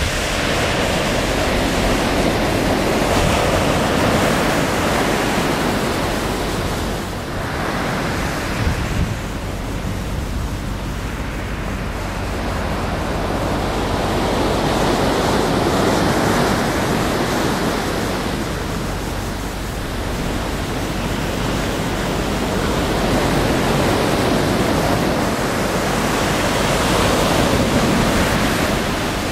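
Ocean surf breaking and washing up the beach, a steady rush that swells and eases every several seconds as waves come in. Wind rumbles on the microphone underneath.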